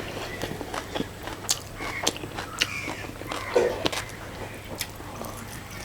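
Close-up mouth sounds of a person eating: chewing and biting, with scattered wet smacks and clicks.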